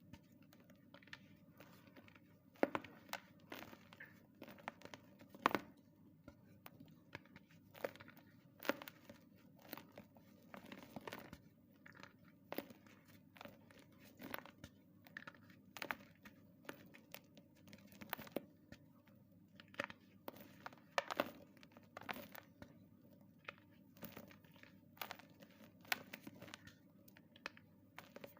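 Pieces of gym chalk (magnesium carbonate) being crushed: an irregular run of dry crunches and crackles, with sharper, louder snaps every second or two.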